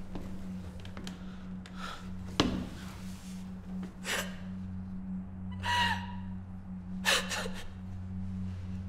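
A woman crying in gasping sobs, several sharp breaths a second or two apart, over a low steady hum.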